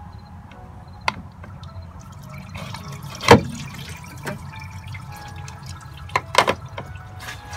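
Engine coolant dripping and splashing as the lower hose comes off a BMW 335i's plastic coolant expansion tank. A few sharp clicks and splashes stand out, the loudest about three seconds in and another pair near six seconds.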